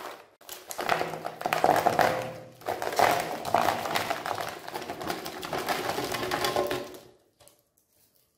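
Dozens of small foil-wrapped chocolate bars pouring out of a box and clattering onto a plastic tray in a dense rattle, in two runs with a short break near three seconds. The pour stops about seven seconds in.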